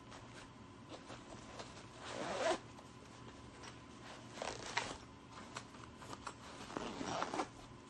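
Zipper of a Fjällräven Kanken sling being drawn closed over a packed bag, in three short pulls a couple of seconds apart, with light fabric rustling between them.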